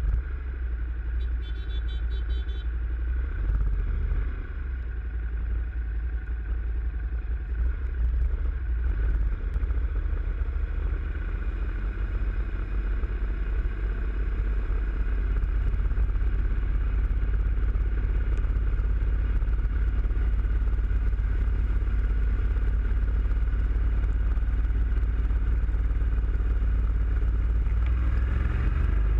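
Yamaha FZ-07 parallel-twin motorcycle riding on wet, flooded streets: a heavy, steady low wind rumble on the bike-mounted camera's microphone over the engine and the hiss of tyres through water, a little louder from about halfway through.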